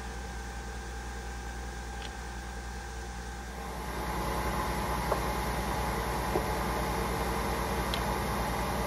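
Nespresso coffee machine brewing: a steady motor and pump hum with several held tones. It gets louder and fuller a little under four seconds in, and two small clicks follow.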